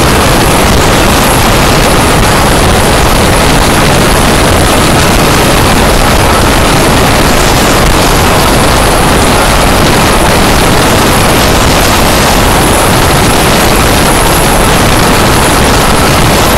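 Wind rushing over the microphone of a camera on an electric bike ridden at speed: a loud, steady roar with no motor note heard over it.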